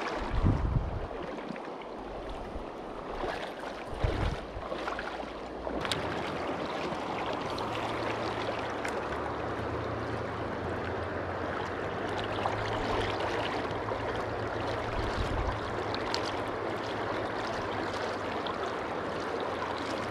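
River water rushing and rippling steadily around a wading angler's legs in a shallow, fast current. There are a couple of brief low thumps in the first few seconds.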